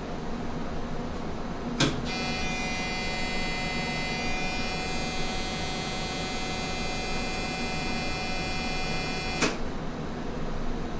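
Varian Clinac 6EX medical linear accelerator switching its treatment beam on and off: a click about two seconds in, then a steady high-pitched whine and buzz of many tones for about seven and a half seconds, cut off by a second click. A low room hum runs underneath.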